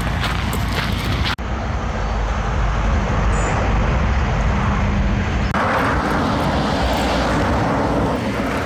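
Steady road traffic noise from a nearby highway, with footsteps on a gravel path at the start and again near the end. The sound changes abruptly twice.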